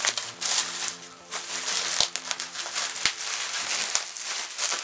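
Bubble wrap rustling and crinkling as it is pulled and torn off a lightsaber blade by hand, with several sharp crackles along the way.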